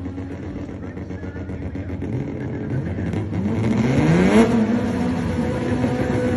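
Car engine accelerating: its pitch climbs from about halfway through, peaks a little later, then drops and holds steady as the sound gets louder.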